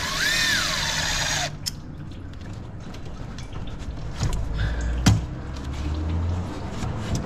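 Cordless Milwaukee driver with an 11 mm deep socket spinning a hose-clamp screw for about a second and a half, its motor whine rising in pitch and then winding back down. After it come a few light knocks and rubbing as the clamp and rubber intake hose are worked loose by hand.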